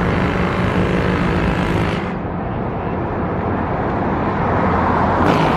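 An engine running steadily, a low droning hum with a rushing noise over it; the higher hiss fades about two seconds in.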